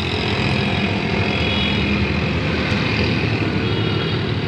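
Steady traffic noise heard from a moving vehicle: engines and tyres on the road, with cars and motorcycles close alongside.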